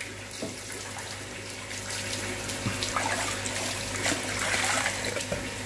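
Water splashing and pouring from a small clay toy pot back into a plastic bucket of water, growing louder from about two seconds in and loudest near the end.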